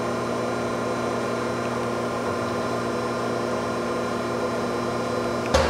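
Okamoto CNC surface grinder running with a steady, quiet hum as its wheel head travels up and down on the Y axis, then a single click near the end.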